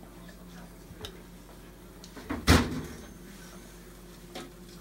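A metal pan with a wire rack clanking onto the rack of an open oven: one loud clank with a short ring about halfway through, and lighter knocks about a second in and near the end.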